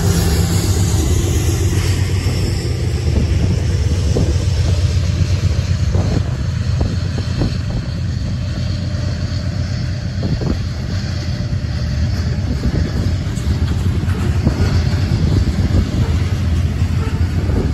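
Covered hopper cars of a grain train rolling past on the rails as the train pulls out: a steady low rumble with scattered short clicks and clanks from the wheels.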